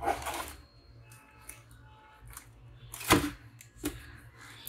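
Handling sounds of a plastic intercom mounting plate being pressed onto a motorcycle helmet's shell: a rustle at the start, faint scattered clicks, and one sharp knock about three seconds in, followed by a smaller one.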